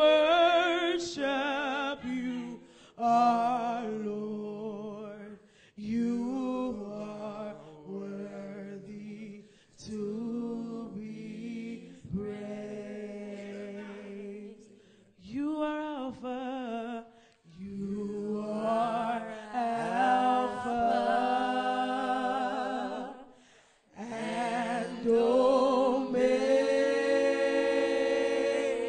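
Gospel praise team singing through microphones in short phrases with short breaks between them. About two-thirds of the way in it moves into longer held notes with vibrato, louder near the end.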